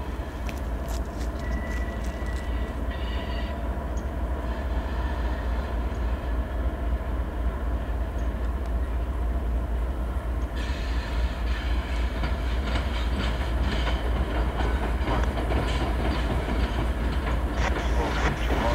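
CSX diesel-hauled freight train of tank cars approaching: the locomotives' engines rumble steadily and grow slowly louder. From about ten seconds in, a clicking and rattling of wheels on the rails joins in as the locomotives come round the curve.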